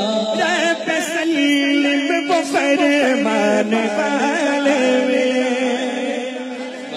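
A man singing an Urdu naat without instruments, drawing out long melismatic held notes between lines of the poem.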